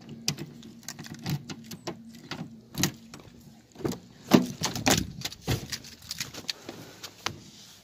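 Keys jangling and clicking as a key is worked in a Jeep Liberty's driver's door lock to unlock it, then the door latch clacks and the door opens, the loudest clack about four seconds in.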